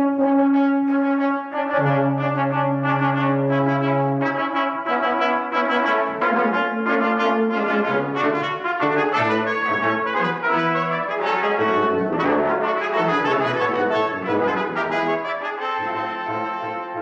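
Brass quintet of two trumpets, horn, trombone and tuba playing. The first few seconds are held chords over a sustained low note, and then the music moves into a livelier passage of quick, changing notes.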